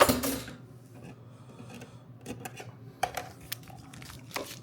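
Plastic packaging of garbage disposal cleaner pods being handled: a burst of crinkling at the start, then scattered light clicks and taps.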